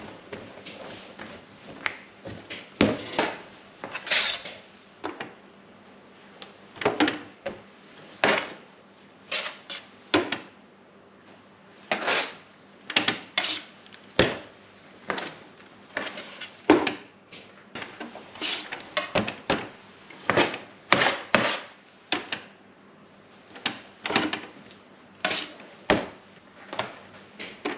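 Irregular knocks, clatters and short scrapes of utensils and equipment being handled on a work surface, about one every second or two.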